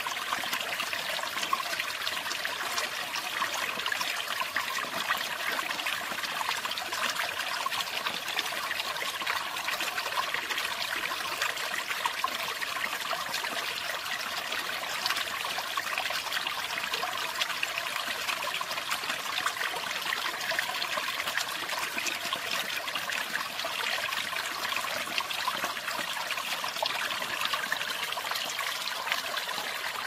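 Small mountain stream trickling and splashing over a little rocky cascade, a steady, unbroken water sound.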